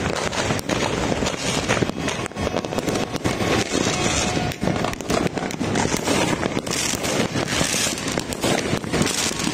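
Many fireworks and firecrackers going off at once: a dense, unbroken barrage of bangs and crackling with no pause.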